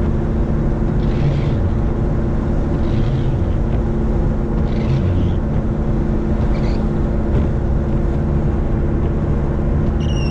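Steady engine and road noise inside a moving vehicle's cabin, with a continuous low hum. A brief rising squeak comes near the end.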